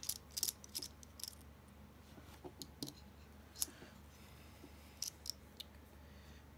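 Scattered light clicks and taps of a Torx driver and small screws on a folding knife as its screws are backed out, a few at a time with pauses between.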